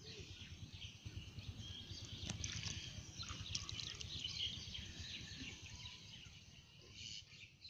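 Several small birds chirping and twittering over a steady low rumble, with one sharp click a little over two seconds in.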